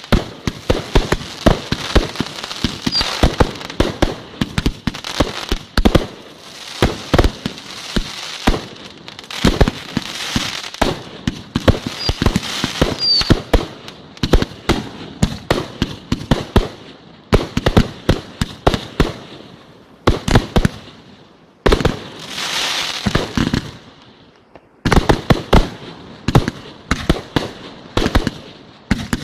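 Fireworks display: a rapid, continuous barrage of bangs from bursting shells, several a second, with stretches of crackling and a few short high whistles. The bangs pause briefly twice in the last third before resuming.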